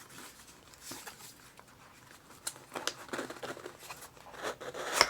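Packaging rustling and crinkling as a small box is handled and opened by hand, with scattered light taps and a sharper click near the end.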